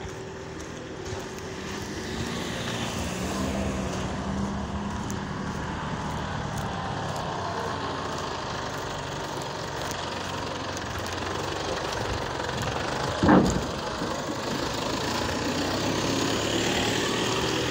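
Road traffic: vehicle engines and tyres passing at low speed. A brief loud thump sounds about 13 seconds in, and the tyre and engine noise of another vehicle rises near the end as it comes closer.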